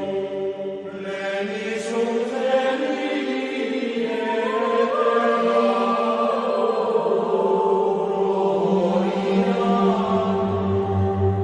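Chanting voices over background music, with long held notes that slowly change pitch above a low drone.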